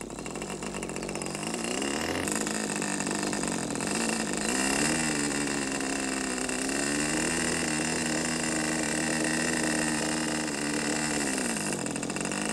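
Small engine of a radio-controlled model airplane running, its pitch rising and falling as the throttle is worked, then holding steady for several seconds before dropping shortly before the end.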